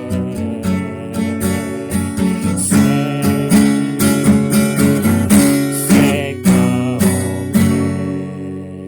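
Guitar music, strummed in a steady rhythm through the closing bars of a song, with a last chord ringing out and fading near the end.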